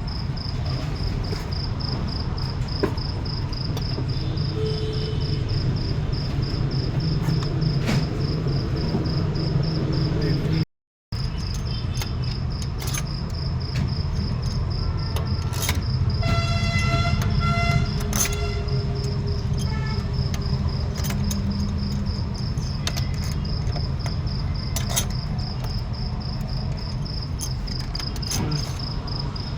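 Steady, evenly pulsing high chirping of a cricket-like insect over a constant low rumble. A horn-like pitched tone sounds briefly about sixteen to eighteen seconds in, and the sound cuts out for a moment about eleven seconds in.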